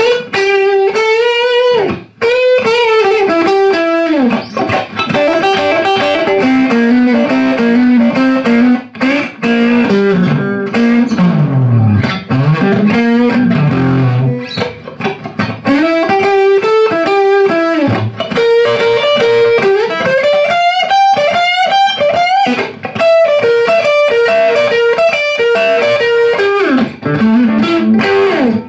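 Electric guitar played through a small 6AQ5-based tube amplifier set to its Deluxe voice: single-note lead phrases with bent notes, dipping into lower notes about halfway through.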